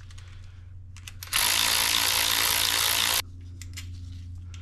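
Ryobi cordless power ratchet running in a single burst of about two seconds, starting a little over a second in, with a few sharp clicks before and after it. A steady low hum sits underneath.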